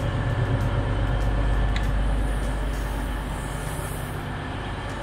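Steady low hum of an East Midlands Railway Class 360 electric train standing at the platform as its passenger doors are opened with the push button. A short high tone sounds about two seconds in.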